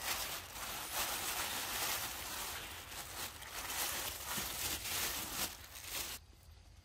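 Plastic bag crinkling and rustling close to the microphone, a dense crackle that cuts off suddenly about six seconds in.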